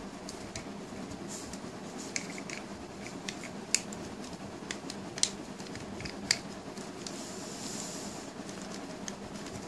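Plastic parts of a Siege Ratchet Transformers figure clicking into place as it is handled and pushed into its ambulance vehicle mode: four sharp clicks a second or so apart, with softer ticks and scraping of plastic between them.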